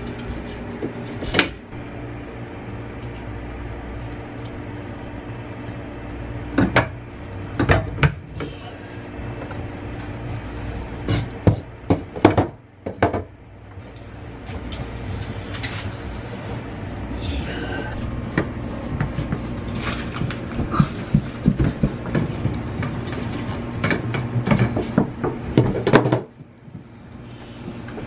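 Knocks, clacks and rubbing as plastic freezer-organizer rails and metal installation guides are handled, set against the freezer's inner wall and pressed into place. A steady low hum runs underneath.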